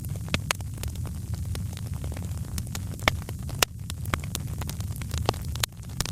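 Wood fire crackling, with irregular sharp pops over a steady low rumble; the loudest pops come about three seconds in.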